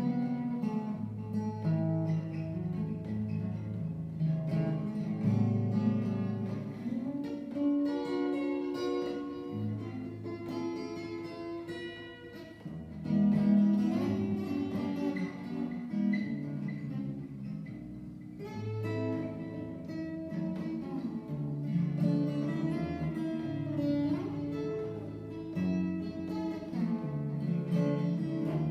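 Solo cutaway acoustic guitar played with the fingers: low bass notes under a picked melody. It softens briefly about twelve seconds in, then comes back louder.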